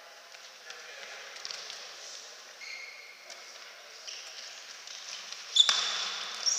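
Tchoukball play on a wooden sports-hall court: faint squeaks of shoes on the floor, then a sudden sharp impact about five and a half seconds in, followed by high ringing squeaks.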